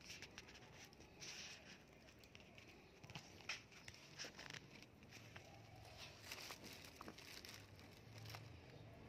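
Faint, irregular rustling and crinkling with scattered light clicks, close to the microphone: handling noise.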